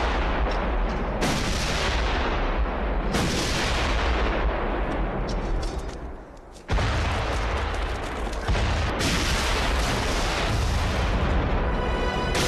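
A chain of big explosions, booming and rumbling with a fresh blast every two to three seconds, set off by a bomb's countdown timer. Music comes in near the end.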